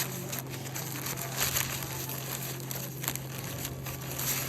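Paper sandwich wrapper crinkling and rustling as a sub is unwrapped by hand, in irregular handling noises.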